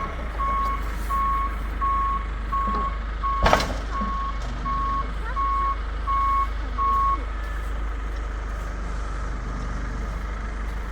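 A large truck's reversing alarm beeping at an even pace over its low engine rumble, stopping about seven seconds in. One loud clunk sounds about three and a half seconds in.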